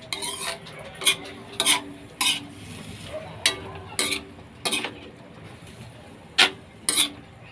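Metal ladle scraping and knocking against an aluminium wok as vegetables are stir-fried: about ten sharp strokes, several leaving a short ring from the wok, with a pause about five seconds in.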